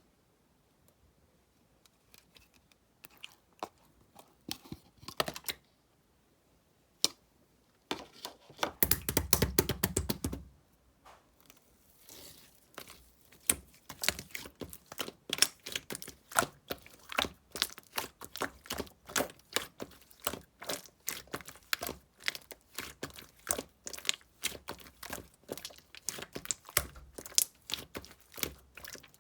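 Clear slime mixed with clay being worked and squeezed, making sticky clicks and pops. They come only now and then at first, a denser, louder squish comes about nine seconds in, and from the middle on the clicks come quickly and steadily, about three or four a second.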